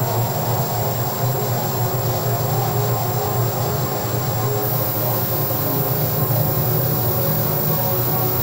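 Dense electronic noise drone: a heavy low hum under several held tones and a wash of hiss, steady and unbroken throughout.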